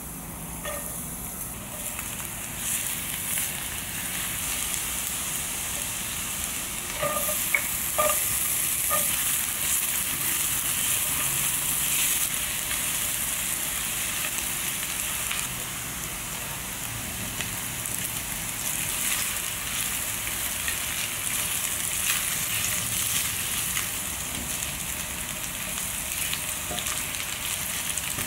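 Minced garlic sizzling in hot oil in a frying pan as it is stirred with a silicone spatula, with diced meat in the pan by the end. A steady frying hiss, with a few light knocks about seven to nine seconds in.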